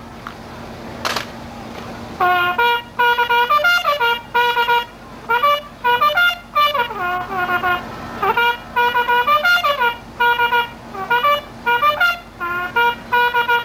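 A single trumpet-like brass instrument playing a melody in short phrases of separate notes, starting about two seconds in, over a faint steady hum.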